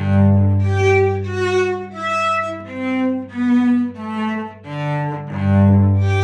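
Cello played slowly with the bow in a church-bell imitation: a low open G rings under a run of short, separate notes on the higher strings, each about half a second long, and the low G sounds again about five seconds in.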